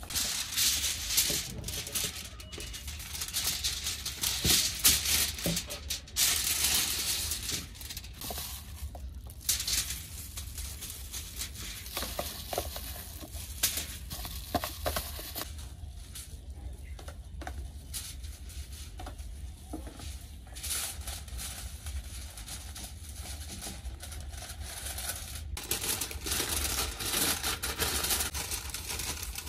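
Gloved hand mixing and scraping marinated sliced beef in a plastic tub, then aluminium foil crinkling as the meat is tipped onto it and wrapped; the crinkling is loudest near the end.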